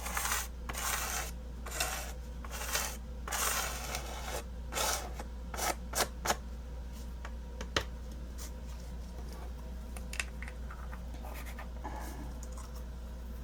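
A paper craft tag scraping loose embossing powder off a surface into a small jar: a run of scratchy rubbing strokes for the first few seconds, then a few sharp clicks, then only faint handling noise.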